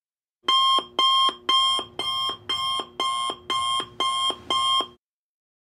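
Countdown timer's alarm going off as time runs out: nine repeated rings, about two a second, starting about half a second in and cutting off suddenly near the end.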